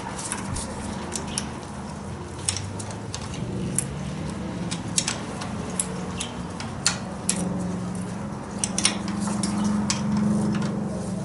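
Hand tools working a nut loose on a motorcycle's starter mounting, with scattered, irregular sharp metallic clinks and taps over a low steady hum.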